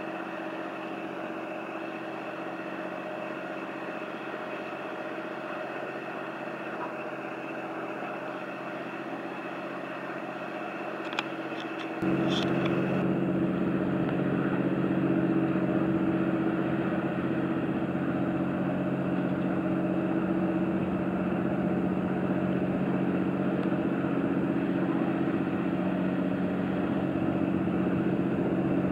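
Passenger riverboat's engine running with a steady drone as it sails past. About twelve seconds in, the drone gets suddenly louder and deeper, just after a few short ticks.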